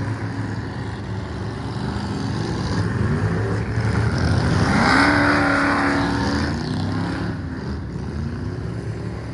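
Dirt track race car engines running. One revs up with rising pitch and is loudest about five seconds in, then fades.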